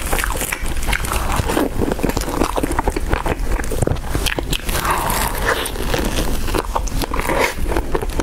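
Close-miked chewing of a cream-filled éclair: a dense, continuous run of small wet clicks and mouth sounds.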